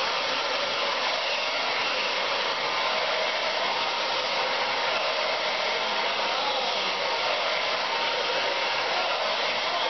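Handheld hair dryer running steadily, blowing on a head of short hair during a blow-dry.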